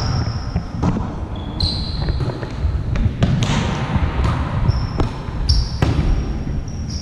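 Volleyball rally: a series of sharp smacks of hands and forearms on the ball, mixed with short, high sneaker squeaks on the court floor.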